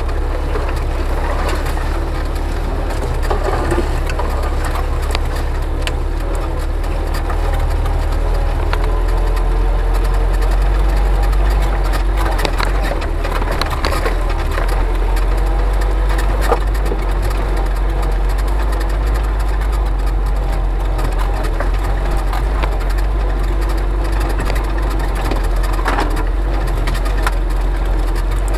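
UAZ off-roader driving along an overgrown forest track, its engine running with a steady low rumble, while branches scrape, crackle and snap against the body throughout.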